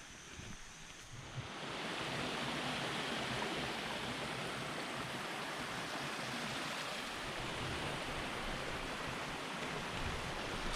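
Rushing water of a waterfall: a steady hiss that swells about a second and a half in, then holds evenly.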